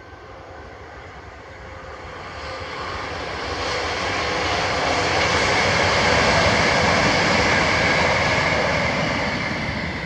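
A train passing, its noise building for several seconds, peaking about two-thirds of the way through, then starting to fade.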